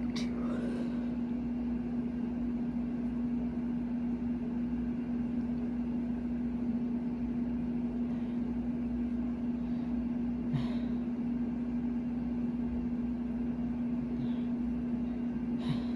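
Very loud air-conditioning unit running with a steady hum over a constant rush of air. A couple of short sharp sounds break through it, about ten and a half seconds in and again near the end.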